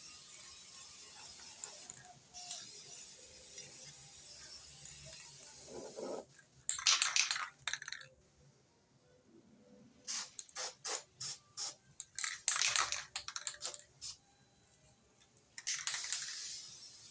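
Aerosol spray paint can hissing, in a long spray and then shorter bursts, with a run of quick sharp clicks and rattles about ten seconds in.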